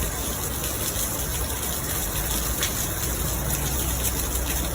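Rushing floodwater: a steady gushing of fast-flowing water.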